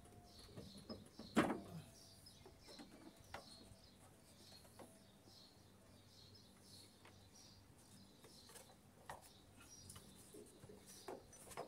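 Faint, scattered metal clicks and knocks of hand tools at work in a car's engine bay, unfastening the A/C expansion valve; the loudest knock comes about a second and a half in. Faint bird chirps repeat in the background.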